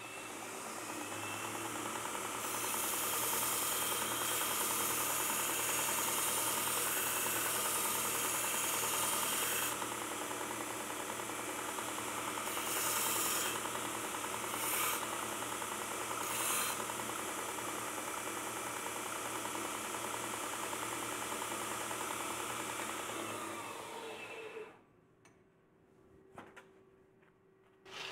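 Belt grinder running, with a steel blade edge pressed against the abrasive belt for about seven seconds of steady grinding, then three short touches. This is deburring the edge of a machined blade blank. Near the end the grinder winds down and stops.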